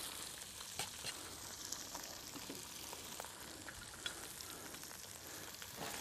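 Chopped onions sizzling steadily in hot oil in a pot, with a few light clicks of stirring.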